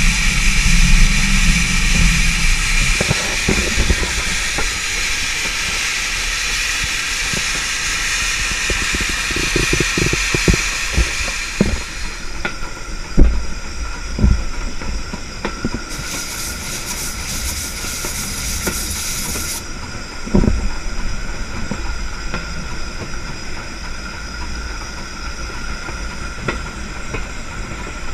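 USATC S100 class 0-6-0 tank steam locomotive running slowly on the line, with a loud steady hiss of steam for about the first twelve seconds. After that it rolls more quietly, with clanks and knocks from the wheels and running gear and another burst of steam hiss a few seconds later.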